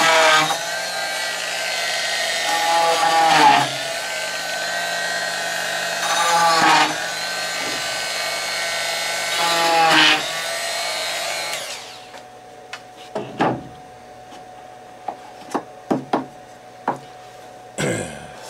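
Handheld rotary tool running at high speed with a whine, its pitch dipping and its sound swelling four times as the bit cuts through the wooden holding tabs. It switches off and spins down about twelve seconds in, followed by a few light knocks.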